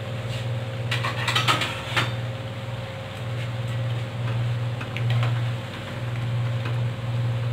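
Gram-flour pakoras frying in hot oil in a steel kadhai, with a metal ladle scraping and clinking against the pan as they are turned, the clinks bunched between one and two seconds in. A steady low hum runs underneath, swelling and easing.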